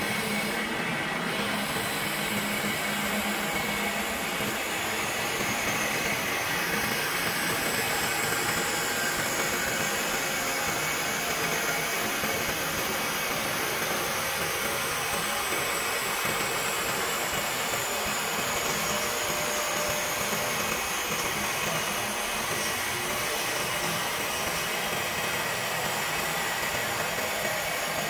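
Two-spindle CNC wood lathe turning and cutting two wooden blanks: a steady machine and cutting noise, with a faint high whine that slowly drops in pitch twice.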